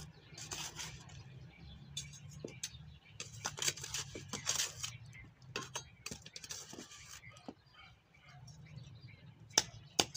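Small metal garden trowel scooping sand from a plastic bucket and scattering it onto bare soil: gritty scraping and sprinkling in several short spells, with sharp taps, the loudest near the end.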